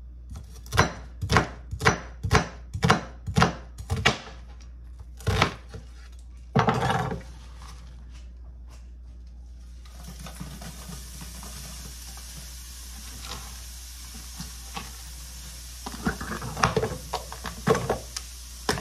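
Knife chopping an onion on a cutting board, about two strokes a second, followed by a knock and a short scrape. From about ten seconds in, a frying pan sizzles steadily, with a burst of clattering from a plastic container near the end.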